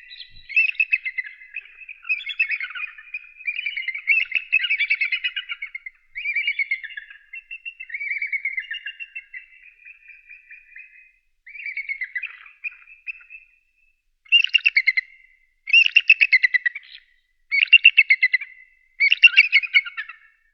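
Bald eagle calling: runs of rapid, chattering piping notes, then four separate bursts of chattering about a second and a half apart near the end.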